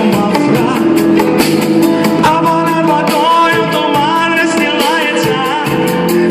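Live performance of a rock song cover: a male singer over guitar and a steady beat.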